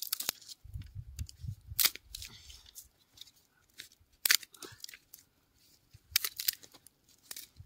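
Dry grass and bamboo sticks of a small campfire catching alight: irregular sharp crackles and snaps, with the sticks being shifted about.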